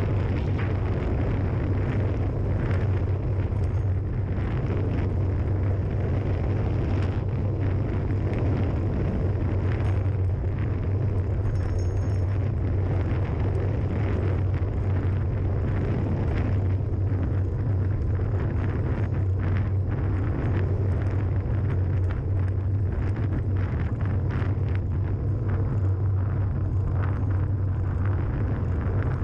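Wind rushing and buffeting over a small camera's microphone during a fast downhill descent on a paved road, a loud, steady rumble that doesn't let up.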